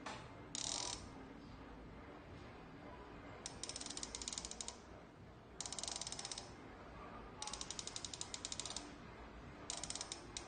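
Rapid ratchet-like clicking of a T-Eagle rifle scope's adjustment turret being turned, in five short runs of about ten clicks a second, as the reticle is adjusted onto the point of aim.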